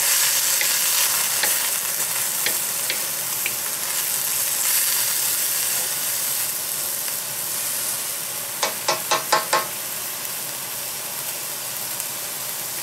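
Mixed vegetables sizzling as they stir-fry in a hot 14-inch carbon steel wok, turned with a bamboo spatula; the sizzle eases slightly as it goes. About two-thirds through comes a quick run of about five knocks.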